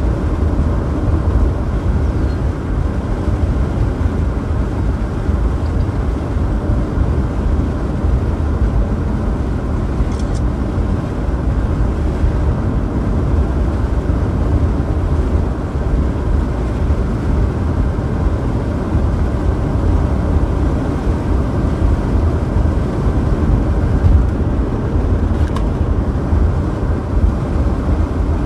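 Steady road rumble of a car driving at speed.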